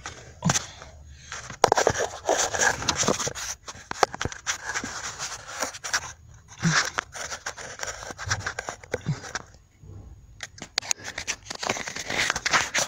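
Irregular clicking, scraping and rubbing of hands working plastic trim and the clutch pedal switch under a car's dashboard, trying to free it from its mounting clips.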